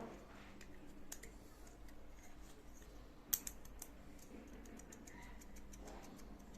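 Faint, scattered light clicks and taps from small parts being handled, with one sharper click about three seconds in.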